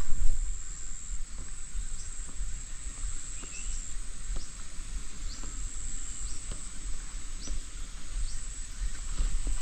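Insects droning steadily in one high continuous tone, over a low rumble that is loudest at the very start, with a few faint short chirps and ticks scattered through.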